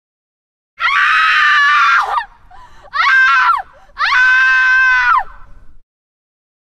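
A woman screaming three times in a high-pitched voice: a long scream, a short one, then another long one.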